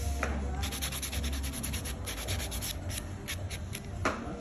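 A nail buffer block is being rubbed in fast back-and-forth strokes across acrylic nail tips, making a dry scratching. It starts about half a second in and stops shortly before the end, followed by one light knock.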